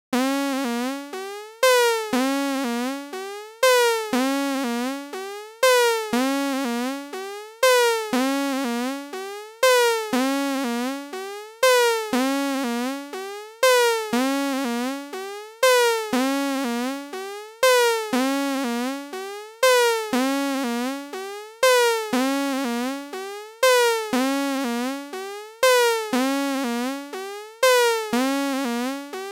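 Software synthesizer in Ableton Live playing a short one-bar phrase of three notes, looping about every two seconds, with the pitch of the notes bending and sliding under MIDI envelope control.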